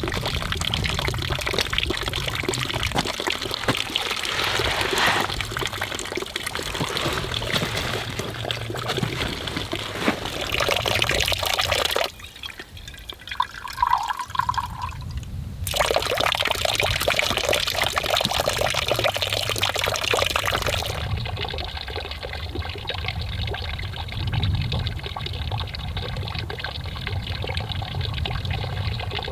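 Spring water running from a wooden spout into a hollowed-log trough, a steady trickling splash. About twelve seconds in it drops away for a few seconds to a quieter stretch with a faint tone, then the flow returns, sounding duller toward the end.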